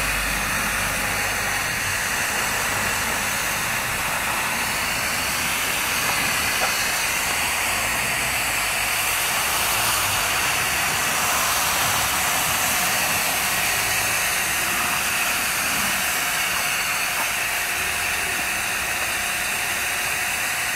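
Hose spray nozzle misting fine water over trays of succulents: a steady hiss of spray.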